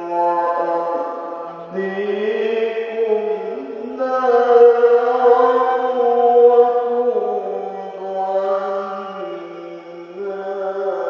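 A man's voice reciting the Qur'an in the melodic tilawah style, drawing out long ornamented notes that step up and down in pitch. It comes in several held phrases, the highest and loudest starting about four seconds in.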